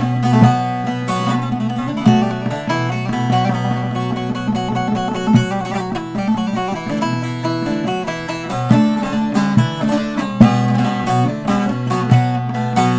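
Short-neck bağlama with a mulberry-wood bowl being played solo: a quick run of plucked notes over ringing lower strings.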